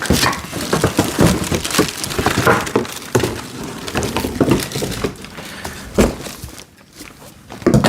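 Packing and parts being pulled out of a cardboard box: irregular crinkling and scraping with scattered knocks, including a sharp knock about six seconds in and another near the end.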